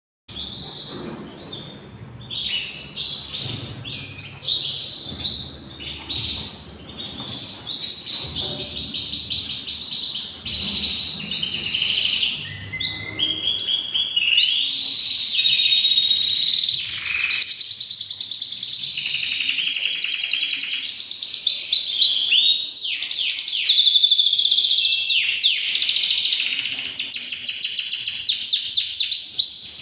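Male domestic canary singing a long, continuous song of rapid trills, rolls and quick repeated high notes, growing louder and more continuous about a third of the way in.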